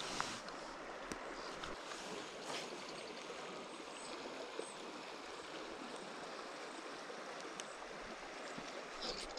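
Small creek running over a riffle: a steady rush of water, with a few faint clicks.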